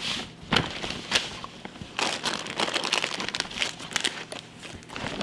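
Shopping bag and packaging crinkling and rustling in irregular crackles as items are handled.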